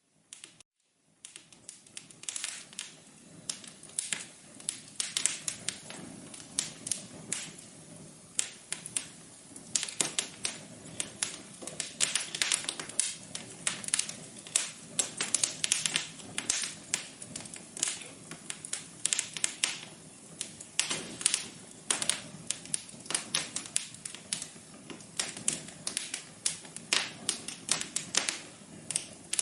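Wood fire crackling in a fireplace: irregular sharp snaps and pops over a soft hiss, starting after about a second of silence.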